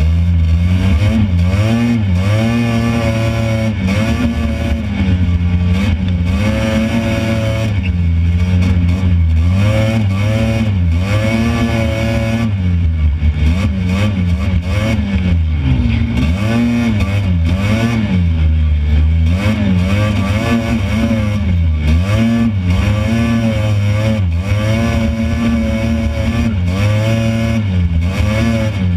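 Honda FL400R Pilot off-road buggy's single-cylinder engine driven hard across sand dunes, its revs climbing and dropping again every second or two.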